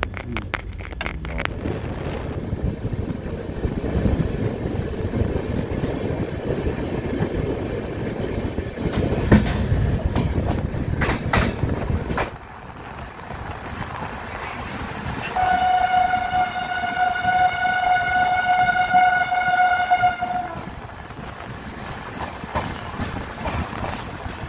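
Passenger train running on the rails with a steady rumble and wheel clatter, which drops away abruptly about twelve seconds in. About fifteen seconds in, a train horn sounds one long steady note for about five seconds.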